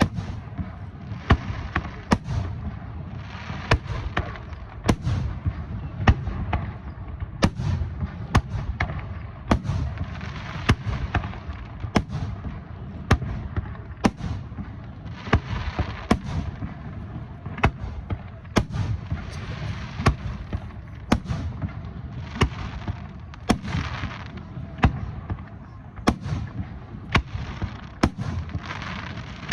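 Aerial fireworks display: shells bursting one after another with sharp bangs every second or so, and stretches of hiss between the bangs.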